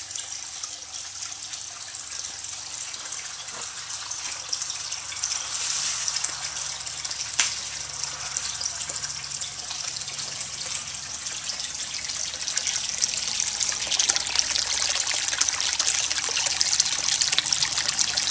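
Steady gush of water pouring from a PVC pipe elbow and splashing into the water of a fish tank, pumped up from the grow trough by a submersible utility pump that is now running. The splashing grows louder in the last few seconds.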